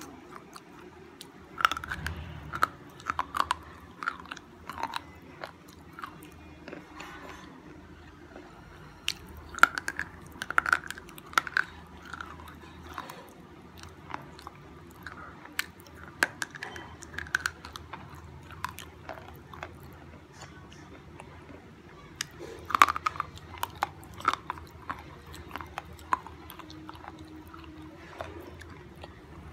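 A person biting and chewing a slate pencil: sharp, brittle crunches as pieces snap off, then gritty chewing. It comes in several bouts, the loudest crunch about three-quarters of the way through.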